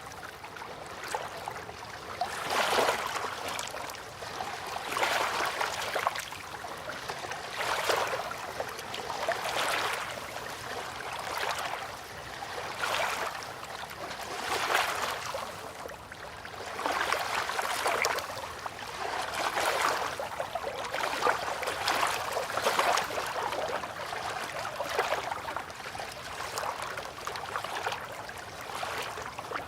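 River water lapping in repeated small swells, about one every two seconds.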